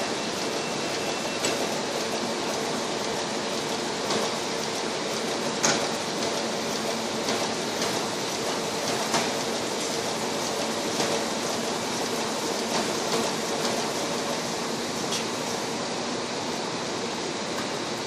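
Print-shop machinery, an offset printing press among it, running with a steady noisy hum and faint tones, broken by occasional clicks and knocks, the sharpest about six seconds in.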